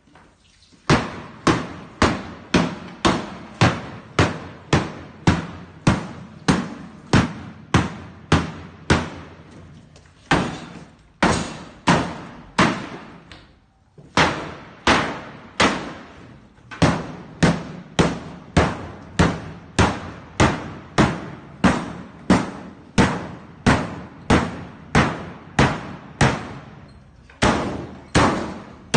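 Steady, regular hammer blows on metal, about three strikes every two seconds, each with a short ring, pausing briefly a couple of times midway and once near the end.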